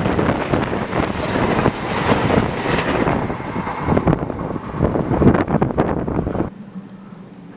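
Freight train of container wagons rolling past close by, the wheels clattering and knocking over the rails. The noise cuts off abruptly about six and a half seconds in, leaving a faint steady hum.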